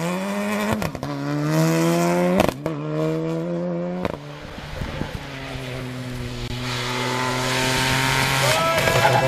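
Rally cars at full throttle on a tarmac stage. A Renault Clio rally car accelerates hard, its revs climbing through two quick upshifts, and the sound cuts off suddenly. Then another rally car approaches at steady high revs, growing louder, and lifts off and shifts down near the end.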